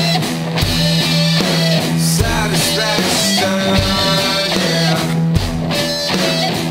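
Instrumental stretch of a rock song: electric guitar and drum kit playing with a steady beat, and no singing.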